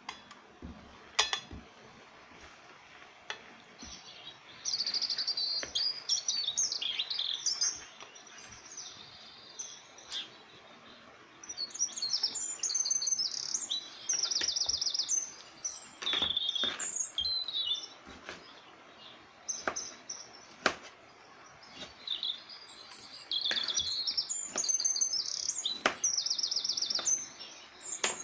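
Small songbirds chirping and trilling in repeated bouts of quick high notes. A few sharp knocks sound in between.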